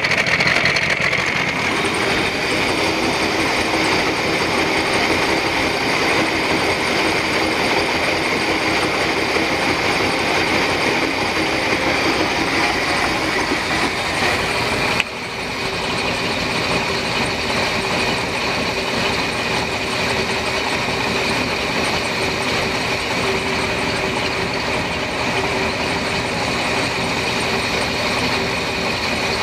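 Carbureted sterndrive boat engine running steadily while still cold, fed by a garden hose, with cooling water spraying out at the outdrive. About halfway through, the sound drops suddenly and changes to the engine's steady mechanical running heard over the open engine bay.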